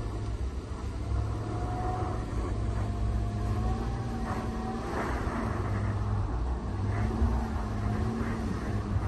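Audi Q7's engine running, a steady low rumble with a faint wavering whine that rises and falls a little.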